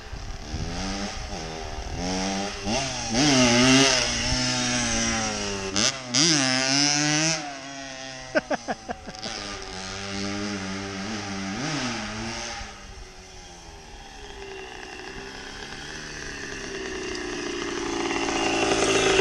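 Kawasaki KDX80 two-stroke dirt bike engine revving hard up and down repeatedly as the rider works the throttle and clutch to pop power wheelies. The engine note fades as the bike moves away about two-thirds of the way through, then grows steadily louder again as it comes back near the end.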